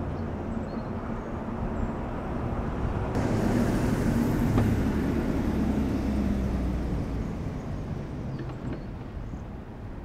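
A road vehicle passing: a steady rush of noise that swells a few seconds in and fades away again.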